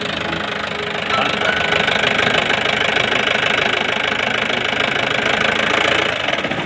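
Mahindra Bolero pickup's diesel engine running with a steady, rapid clatter, getting louder about a second in.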